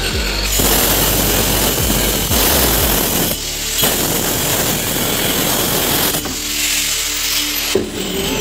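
Handheld marble cutter, an angle-grinder-type tool with a cutting disc, sawing through a marble countertop slab to cut out an opening. It cuts in two long passes with a short break a little after three seconds in, then runs more lightly and unevenly after about six seconds.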